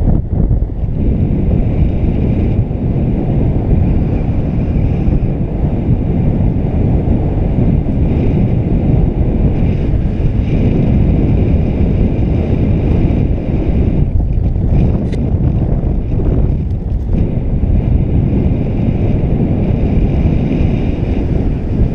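Loud, steady wind buffeting a GoPro microphone in the airflow of a paraglider in flight.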